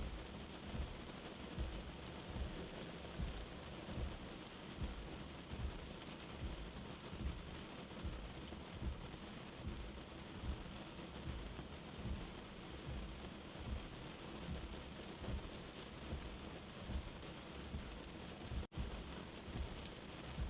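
Steady rain falling, an even hiss with low soft thuds recurring about every second. The sound cuts out for an instant near the end.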